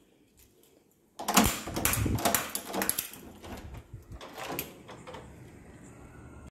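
Door being unlatched and opened: a sudden clatter of metal clicks and rattles about a second in lasting a couple of seconds, then a shorter rattle a few seconds later.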